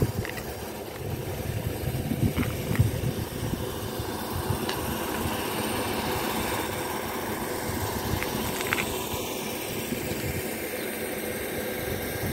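Steady road and engine noise of a moving car, heard from inside the car, with a few faint ticks.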